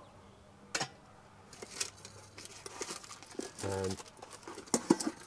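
A metal kettle set down on a camping stove's pot supports with a single sharp clink, then a crinkling packet being handled, with a few louder crackles near the end.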